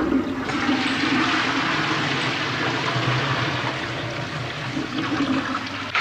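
A row of wall-hung urinals flushing: water from the overhead flush pipes rushes into the bowls with a steady hiss that starts suddenly and dies away near the end.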